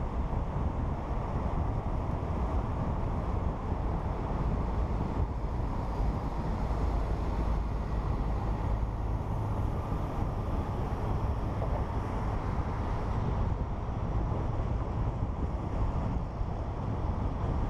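Wind buffeting a camera mounted on the hood of a moving car, over a steady low noise of the car driving along the road.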